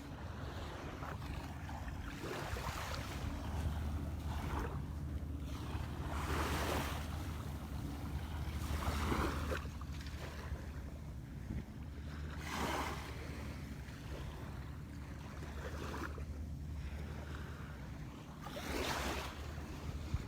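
Small waves washing onto the beach every few seconds, with wind on the microphone and a low steady hum underneath.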